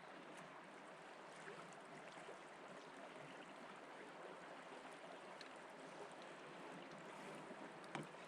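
Faint, steady rush of river water, with a single short click about eight seconds in.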